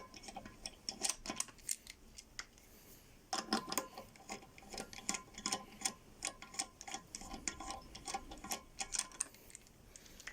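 Ratchet wrench clicking as the loosened wheel bolts are spun out to take the wheel off, a fast run of light clicks that pauses about two seconds in and resumes about a second later.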